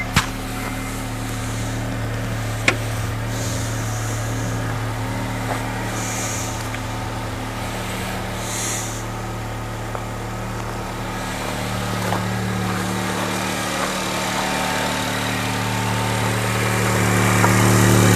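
The Acura RDX's 2.3-litre turbocharged four-cylinder engine idling steadily with its oil filler cap left off, growing louder over the last few seconds. A couple of sharp clicks sound near the start.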